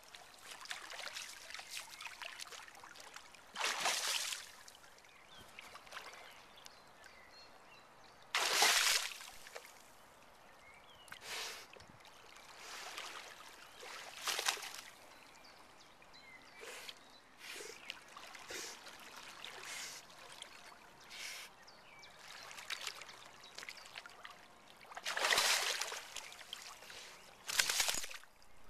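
Water splashing and trickling as a golden retriever dives and moves through it, with a handful of loud splashes and softer splashing and dribbling between them.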